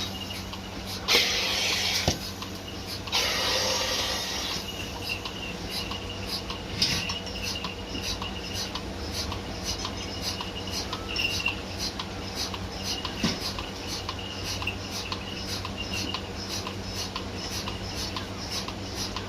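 Milking machine running: a steady motor hum with its pulsator clicking about twice a second. There are two short bursts of hissing air near the start.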